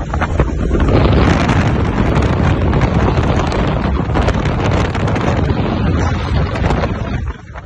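Loud wind buffeting the microphone over the rumble and clatter of a military vehicle driving fast, turning into a churning rush of splashing water as the vehicle plunges into a river.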